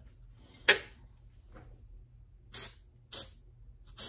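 Handling of used shop paper towels being discarded: a sharp click a little under a second in, then three short, hissy rustles of paper.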